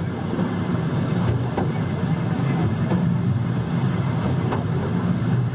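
Katoomba Scenic Railway carriage running down its steep track: a steady low rumble with a few light clicks.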